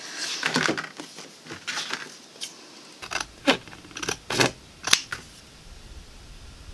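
Fabric scissors snipping through printed paper card: a series of short, sharp, irregular snips, the loudest ones in the second half.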